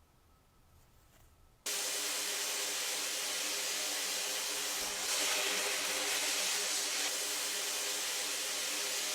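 A steady, loud hiss of rushing air or spray that starts abruptly about a second and a half in and runs on without a break, with a faint steady hum beneath it.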